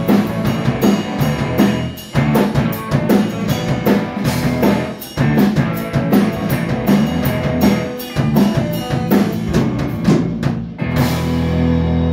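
Live rock band playing loud: electric guitar, bass guitar and a drum kit pounding out the beat. About eleven seconds in the drumming stops and a held low chord rings on.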